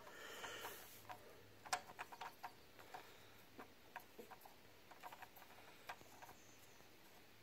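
Faint, irregular small ticks and clicks as a small Allen key turns a set screw, tightening a drill press's table crank handle onto its shaft.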